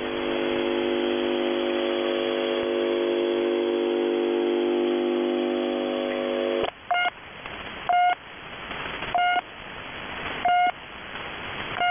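Shortwave number station The Pip received on 5448 kHz upper sideband: a steady chord of several low tones over radio static, which cuts off sharply about seven seconds in. The station's short high beeps then follow, one roughly every 1.3 seconds, over hiss.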